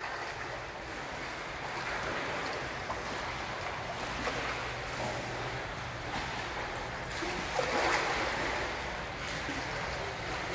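Steady splashing and churning of pool water from a swimmer's flutter kick with fins, swelling louder for a moment about three quarters of the way through.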